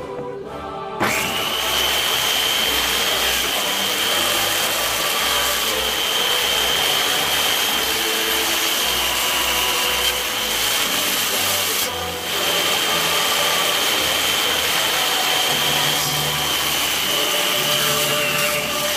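A power tool switches on about a second in and runs steadily with a high whine, briefly easing off once near the middle.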